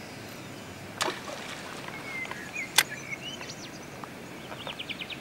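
Birds calling over steady outdoor hiss: a few short whistled notes in the middle, then a quick run of short descending chirps near the end. Two sharp clicks stand out, about two seconds apart.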